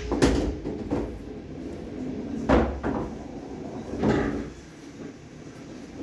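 Pool ball dropping into a corner pocket of a coin-operated bar-box pool table and knocking its way through the table's ball-return run: a series of sudden knocks, the loudest near the start and about two and a half seconds in.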